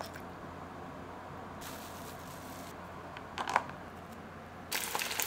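Kitchen food-prep handling sounds: a soft hiss in the second second, a few sharp clicks about three and a half seconds in, then a dense crackling rustle near the end.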